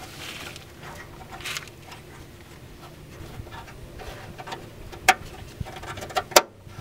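Faint handling rustles of wiring and plastic, then two sharp clicks near the end, about a second apart, as the oxygen sensor's electrical connector is pushed into its plastic keeper clip.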